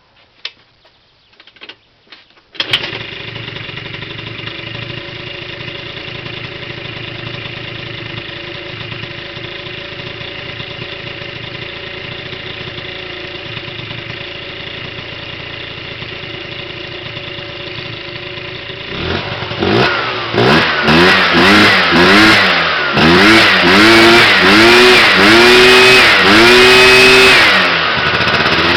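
Zipp Zico scooter engine with a Tecnigas aftermarket exhaust. A few light clicks come first, then the engine starts about three seconds in and idles steadily. From about two-thirds of the way through it is revved again and again, each rev rising in pitch and held a little longer.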